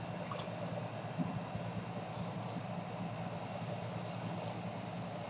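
Window air conditioner running with a steady hum.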